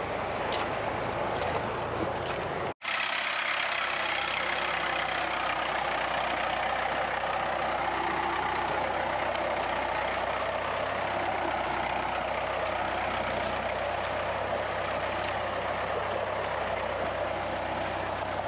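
After a brief dropout about three seconds in, a farm tractor's engine runs steadily with a low hum as the tractor drives through mud and standing water.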